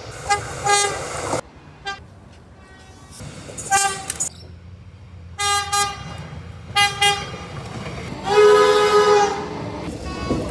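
Train horn sounding a string of short toots, then one longer blast about eight seconds in, over the low rumble of the train.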